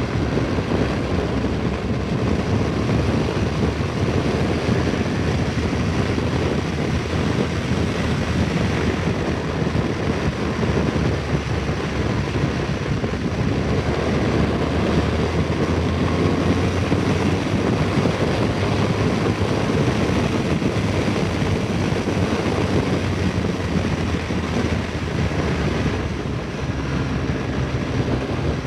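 BMW R1200GS motorcycle riding at road speed: a steady wind rush over the microphone on top of its flat-twin engine running.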